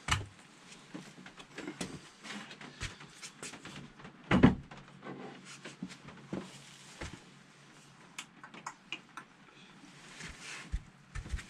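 Scattered clicks and knocks of metal tools being picked up and handled, with one loud knock about four and a half seconds in.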